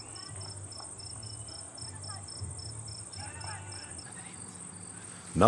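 Night insects, crickets: a steady high trill with a second, evenly pulsed chirp about four times a second that stops about four seconds in, over a low hum.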